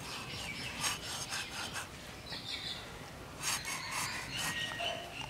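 A tilapia scraped against a boti's curved iron blade: a series of short, irregular rasping strokes as the scales are scraped off.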